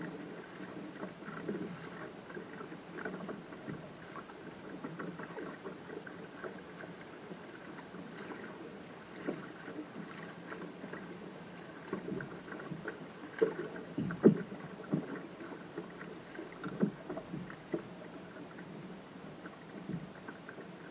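Water slapping and gurgling against the hull of a small sailing dinghy under way, with a few sharper, louder slaps past the middle.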